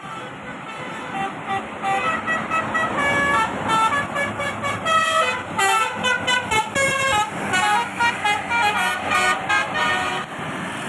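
Basuri 'telolet' multi-tone horn on a bus playing a fast tune of short notes that step up and down in pitch, over the sound of the vehicle's engine.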